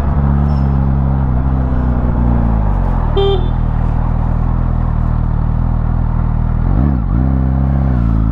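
Motorcycle engine running under the rider, its note falling as the bike slows about two seconds in. A short horn toot sounds about three seconds in, and near seven seconds the engine pitch briefly dips and rises again.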